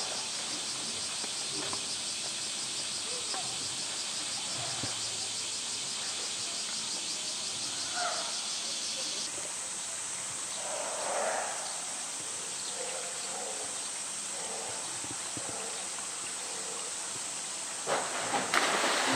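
A steady high buzz of summer insects, with a fine regular pulsing. Near the end a polar bear drops from the rock ledge into the pool with a loud splash, made of a few quick splashing hits.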